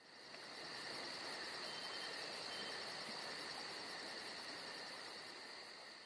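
Night chorus of crickets and other insects: a steady high-pitched trill with a faster, evenly pulsing chirp above it. It fades in at the start and fades out near the end.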